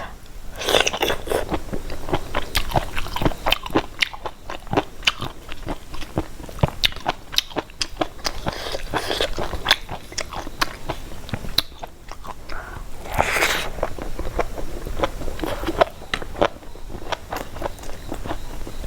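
A person chewing and crunching mouthfuls of food, a quick uneven run of crunches and wet mouth clicks.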